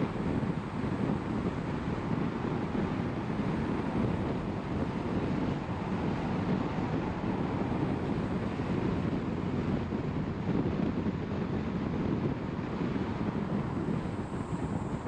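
Steady road noise from a car driving at a constant pace: a low, even rumble of tyres and wind, with no change through the stretch.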